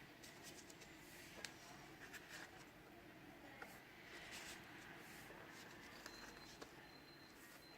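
Faint handling of paper and card: light rustles and small scattered clicks as postcards and their packaging are moved, close to near silence.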